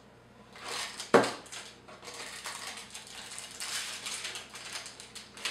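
Crinkling and rustling of a small plastic bag as an accessory is handled and pulled out of it, with one sharp tap about a second in.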